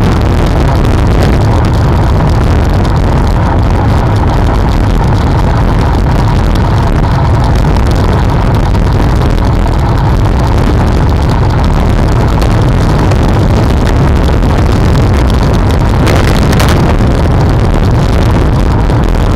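Wind buffeting and road rumble on a bicycle-mounted camera's microphone while riding, a loud, steady low rush with no break.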